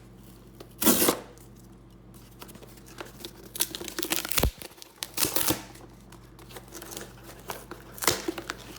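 A small package being opened by hand: irregular bursts of tearing and crinkling packaging, the loudest about a second in.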